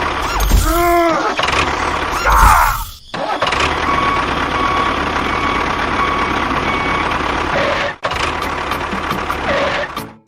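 Steady engine-like running noise of mini construction vehicles, with a short rising-and-falling tone about a second in and a series of short high beeps from about four to seven seconds in.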